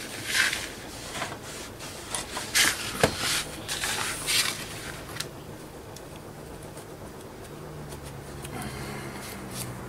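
Wiping up paint splatter marks: several short rubbing swishes in the first half, then quieter handling with a faint low hum.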